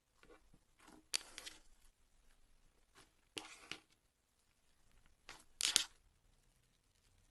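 Slime being pressed and squished by hand, in short crackling squishes, three of them louder than the rest.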